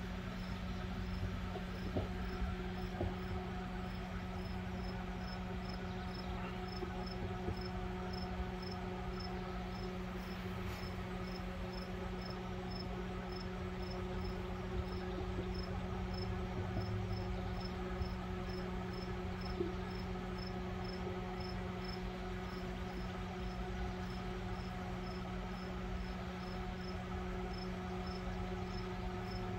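Furrion RV microwave running with a steady hum from its fan, transformer and turntable; this unit runs but does not heat food. A cricket chirps high and steadily, about twice a second, over the hum.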